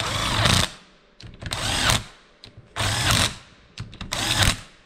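Cordless drill with a socket on an extension spinning the cylinder head bolts down on a two-stroke kart engine, in four short runs of about half a second each, the motor whirring up and down with each bolt.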